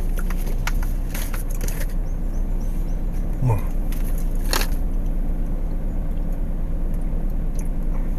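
Steady low hum of a car idling, heard from inside the cabin, with a few light crackles and clicks from handling and eating popcorn in the first couple of seconds and again about four and a half seconds in.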